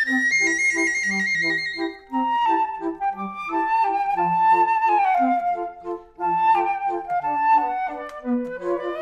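Instrumental music: a lead melody with some sliding notes over a repeating bass-note-and-chord accompaniment, with two brief pauses in the phrasing.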